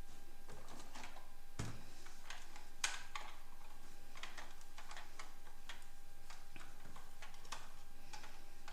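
Small hard plastic clicks and taps, irregular, about two or three a second, with the sharpest about three seconds in: toy vehicles being handled and moved. A faint steady hum runs underneath.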